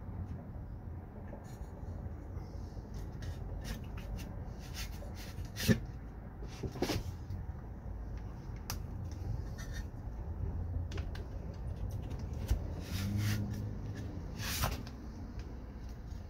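A Lexan window pane in its rubber gasket being worked by hand into a Humvee X-door window frame: scattered light clicks and knocks with rubbing, over a steady low hum.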